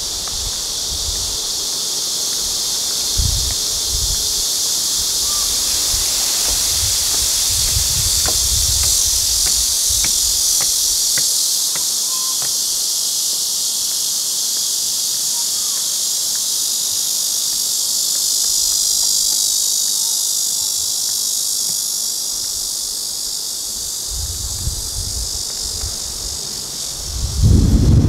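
Dense insect chorus: a loud, steady high-pitched buzz. Wind rumbles on the microphone in gusts near the start and again near the end.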